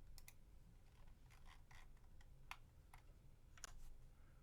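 Faint, scattered keystrokes and clicks on a computer keyboard and mouse, irregularly spaced, as dimensions are typed in.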